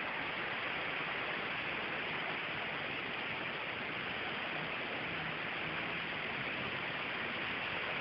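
Heavy rain pouring down in a storm, a steady, even hiss.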